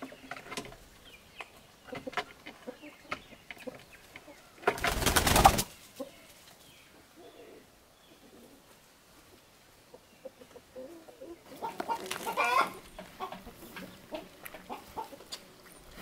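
Domestic hens clucking, with a brief loud flurry of wing flaps about five seconds in and a louder run of clucks near the end.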